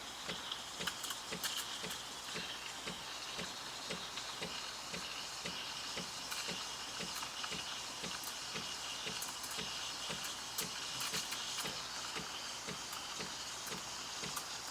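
Breville Barista Express steam wand frothing milk in a pitcher: a steady hiss with a regular pulsing, about three pulses a second.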